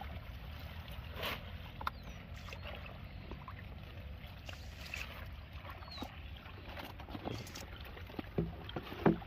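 Water sloshing and splashing, with a few scattered knocks and a sharp click near the end.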